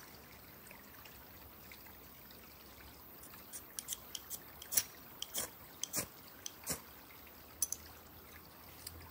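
Faint steady trickle of a shallow stream, with a run of light clicks and taps from about three and a half seconds in until near the end as the parts of a Trangia alcohol stove are handled.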